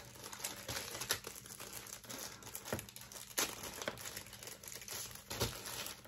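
Clear plastic bag crinkling and rustling as a small remote control is unwrapped from it, with a few sharp ticks and taps of handling.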